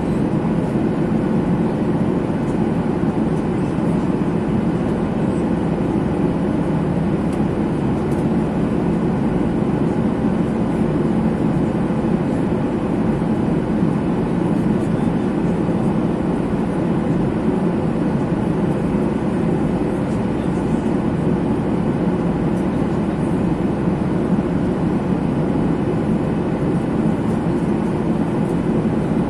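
Steady rumble of a jet airliner heard from inside the passenger cabin, even and unchanging.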